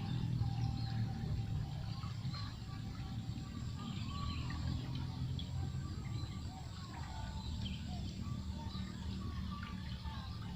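Several birds chirping and warbling in short, scattered calls over a steady low rumble.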